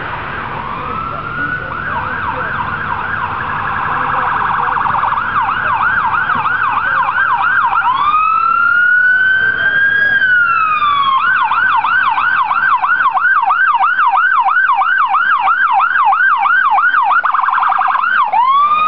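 Electronic siren on a Dodge Durango emergency response vehicle, switching between a fast yelp of about two to three sweeps a second, a brief rapid warble and a slow wail that rises and falls. It grows louder as the vehicle approaches.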